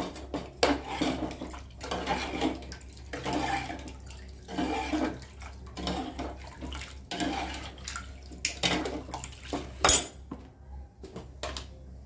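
Chicken broth being stirred in an open pressure cooker with a steel ladle: repeated sloshing and splashing of liquid about once a second. The ladle clanks against the pot about ten seconds in.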